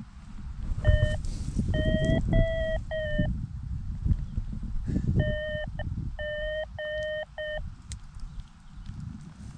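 Two short runs of electronic beeps, each a few flat notes of uneven length at slightly different pitches, like a simple tune. Under them runs low rumbling and knocking from the camera rubbing against clothing.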